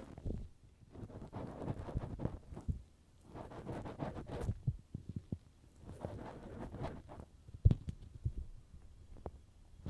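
Ear-cleaning tools rubbing and scraping on the ear of a binaural microphone, in rustling strokes about a second long with short pauses between them, and a sharp knock about three-quarters of the way through.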